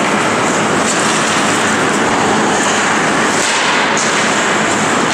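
Ice hockey play in an indoor rink: a steady, loud hiss of skates on the ice and arena noise, with a few short sharp scrapes or clicks about one, three and a half, and four seconds in.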